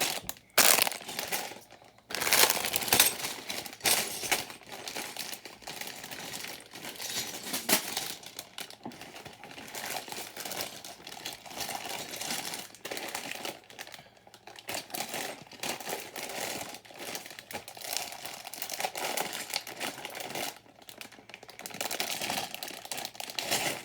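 Plastic bags of building-brick pieces being handled and shuffled, crinkling continuously with small clicks and a few louder bursts.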